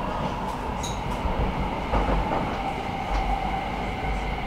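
Stockholm metro train running, heard from inside the passenger car: steady rumble of wheels on rail with a motor whine that slowly falls in pitch and a few faint clicks and rattles.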